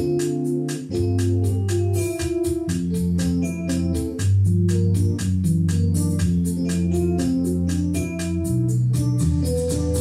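Electronic keyboard playing an organ-voiced instrumental passage: held chords over a moving bass line, with a steady ticking beat at about four a second.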